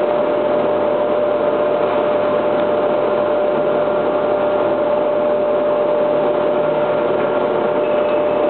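Factory machinery running: a steady hiss and hum with a constant whine, unchanging throughout.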